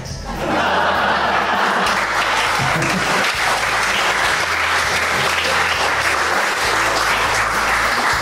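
A roomful of people applauding. The clapping starts about half a second in, holds steady, and dies away right at the end.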